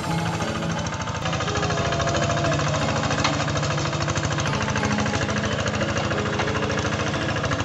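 Single-cylinder diesel engine of a Quick G3000 Zeva two-wheel hand tractor running under load while ploughing dry ground, a steady fast train of firing pulses.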